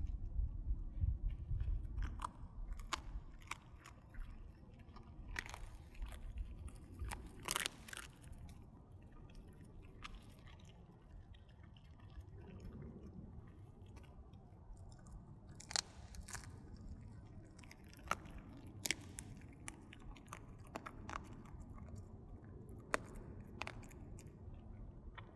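A dog chewing dried duck bones: irregular sharp cracks and crunches with pauses between them, heaviest in the first couple of seconds.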